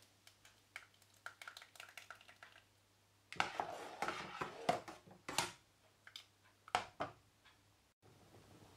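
Wooden spoon stirring thick lentil soup in a stainless steel pot: faint light taps against the pot, a denser stretch of stirring and scraping in the middle, then a few more taps.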